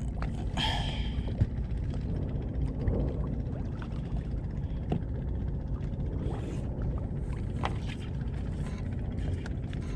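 Fishing boat's engine idling, a steady low hum, with a few faint clicks.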